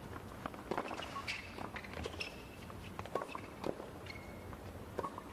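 Tennis rally on a hard court: sharp knocks of racquet strikes and ball bounces, several short shoe squeaks on the court surface, and running footsteps.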